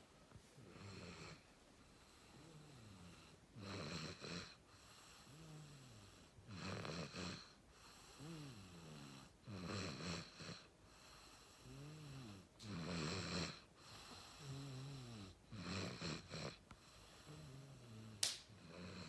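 Soft snoring: a drawn-out, pitched snore on each breath, about every three seconds, six in all. A single sharp click comes near the end.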